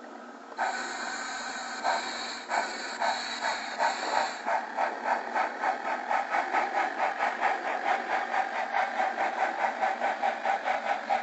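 Steam sound from a model steam locomotive's sound system. A hiss of escaping steam comes first, then exhaust chuffs that quicken to about four a second as the locomotive gets under way.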